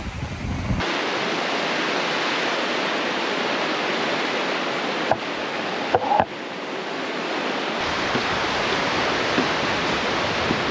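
Creek water rushing steadily below, a dense even hiss of fast-moving water. Wind buffets the microphone for the first second, and a few brief knocks come about five to six seconds in.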